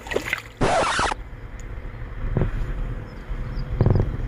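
A short splash of water about half a second in as a small bass is let go at the water's edge, over a steady low rumble. A brief low thump comes near the end.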